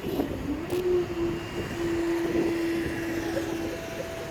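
Class 158 diesel multiple unit at the crossing, giving a steady whine that settles in after a short rise about half a second in. A second, higher tone joins near the end.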